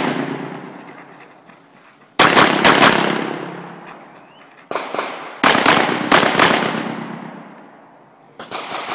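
Rapid handgun fire in quick strings: about five shots a couple of seconds in, a pair a little before halfway, four or five more just after, and another string near the end. Each string fades in a long echo.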